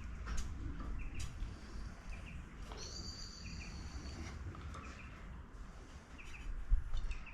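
Birds chirping, short repeated chirps with a higher held whistle about three seconds in lasting over a second. Light clicks and knocks run under them, with a louder knock near the end, from fibreglass tent pole sections being handled as the shock cord is let loose.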